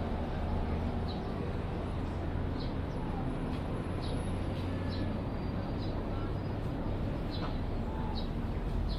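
Railway station ambience: a steady low rumble with indistinct background chatter, and small birds chirping in short high notes about once a second throughout.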